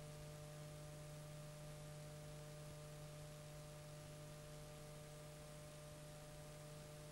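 Faint, steady electrical hum with a constant hiss on the recording, with no other sound.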